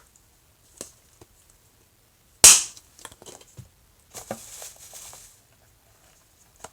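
Small plastic items and packaging being handled: one sharp plastic snap about two and a half seconds in, a few light clicks around it, and a short rustle.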